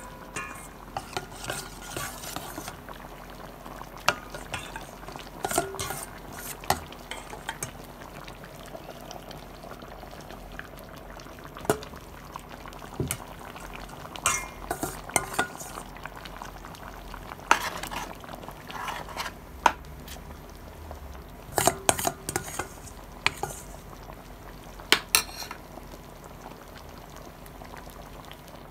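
Metal ladle stirring a thick stew in a stainless steel pot, with irregular sharp clinks and scrapes of metal on metal over a steady low hum.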